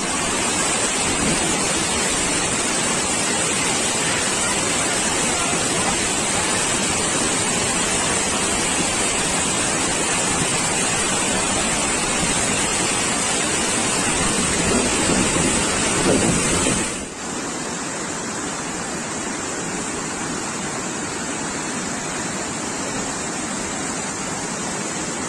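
Waterfall: rushing, falling water as a loud, steady, dense noise. About two-thirds of the way through it drops a little quieter and duller.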